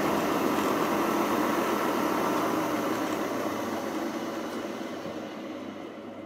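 Schaublin SV52 milling machine's spindle drive and gearing running steadily with the face mill spinning free, then coasting down after being switched off, the sound fading away over the last three seconds.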